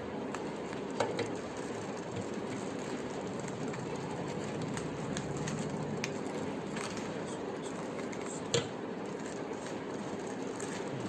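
Steady background noise with a few scattered light clicks and one sharper knock about 8.5 seconds in, from plastic Rubik's cubes being handled and set down.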